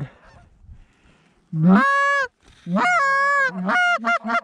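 Canada goose honking. After a quiet second and a half come two long, drawn-out honks, each breaking from low to high and then held, followed by shorter honks in quick succession near the end.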